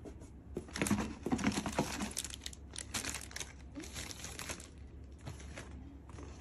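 Plastic wrapping crinkling and cardboard box flaps rustling as hands unpack a boxed steam iron, in irregular crackles and small knocks, loudest between one and two seconds in.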